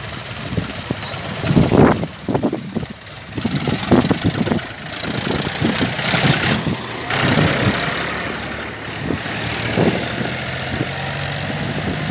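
Mahindra 265 DI tractor's three-cylinder diesel engine running as it pulls a trolley loaded with sacks past and away, with irregular knocks and rattles over a steady engine hum.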